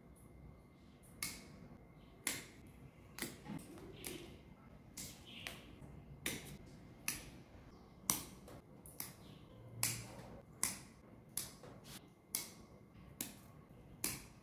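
Pruning shears snipping through rosemary branches: a series of sharp clicks, about one a second, some coming in quick pairs.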